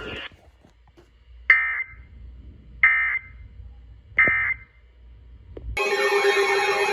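EAS end-of-message (EOM) signal: three short, identical SAME digital data bursts about 1.4 seconds apart, marking the end of the alert broadcast. Near the end a loud, sustained electronic sound with several steady tones starts.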